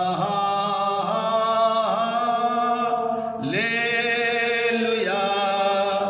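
A man's unaccompanied voice chanting in prayer, holding long notes of about a second each that slide up or down into the next, with a short break about halfway through.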